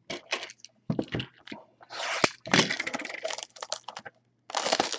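Crackling and tearing of plastic wrap and cardboard as a sealed retail box of football trading cards is opened, in a busy run of short cracks and crinkles.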